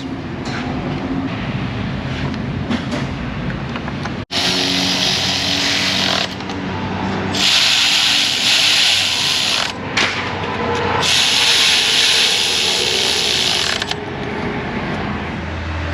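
Hand-tool work on a car engine with ratcheting and mechanical clicking, then two loud hissing, rushing bursts of a couple of seconds each.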